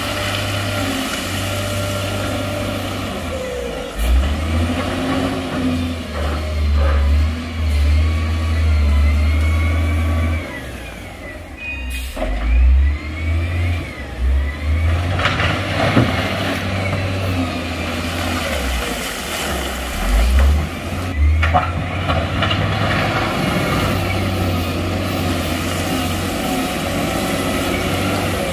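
Heavy diesel engines of dump trucks and a wheel loader running and revving, rising and falling in pitch, with a few brief sharp sounds among them.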